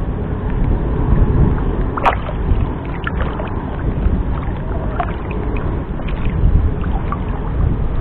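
Water sloshing and lapping right at the microphone around someone wading chest-deep, over a steady wind rumble, with a few small splashes and clicks; the sharpest comes about two seconds in.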